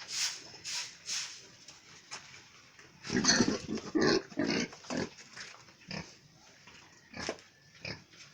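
Pigs grunting. A burst of loud grunts comes about three to five seconds in, then a few short, sharper calls.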